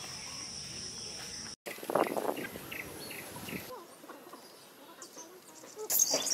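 Outdoor rural background: a steady high insect drone with short bird chirps and a few short knocks, changing abruptly twice as the footage cuts.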